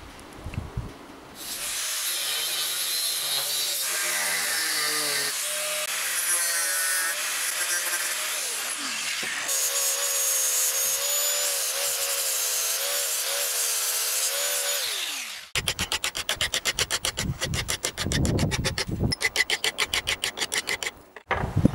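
Angle grinder with a cutting disc cutting through a steel strip clamped in a vise, its whine wavering under load, then winding down after about fifteen seconds. It is followed by quick, even back-and-forth strokes of a hand file on the cut steel.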